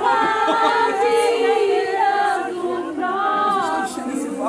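A group of people singing together without instruments, several voices overlapping.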